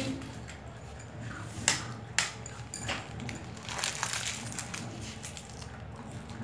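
Puppies crunching and chewing biscuits, with irregular sharp crunches and clicks.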